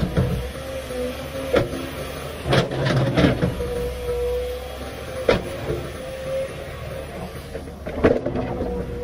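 Komatsu PC500LC hydraulic excavator working: its diesel engine runs under load with a steady whine, and the bucket and linkage give several sharp knocks as it digs into rock and earth, the clearest just past halfway and near the end as the machine swings.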